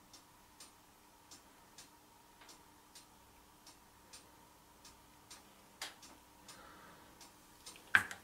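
Faint, regular ticking, about two ticks a second with a slightly uneven beat, over a faint steady hum. There is a louder click about six seconds in and a sharper knock near the end.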